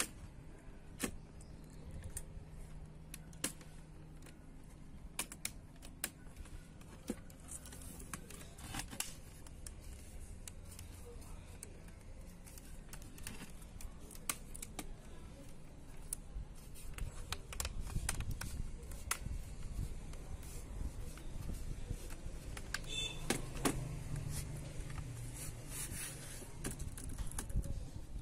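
Irregular plastic clicks and taps of fingers pressing on the keys and keyboard edges of a white ASUS netbook, over a low background rumble.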